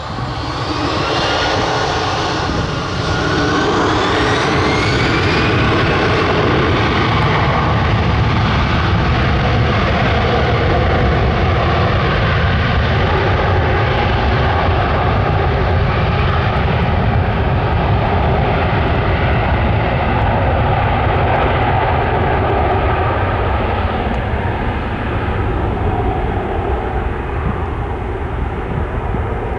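Airbus A321-211's twin CFM56-5B turbofan engines spooling up to takeoff thrust, with whining fan tones rising in pitch over the first few seconds. Then comes a steady loud roar as the airliner accelerates down the runway on its takeoff roll. The high end of the sound slowly fades toward the end as the aircraft draws away.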